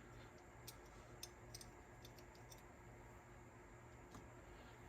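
Near silence with a low hum and about half a dozen faint, light clicks, spaced irregularly, from small cassette-deck mechanism parts being handled and set down.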